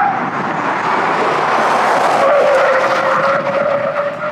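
GMC Hummer EV pickup's tires squealing on pavement as the truck is driven hard, a wavering squeal that dips in pitch about two seconds in, over tyre and road noise.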